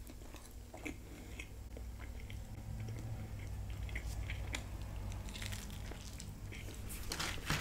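Close-miked chewing and biting of a toasted chicken quesadilla: soft wet mouth clicks and smacks scattered throughout, with a brief louder hiss right at the end.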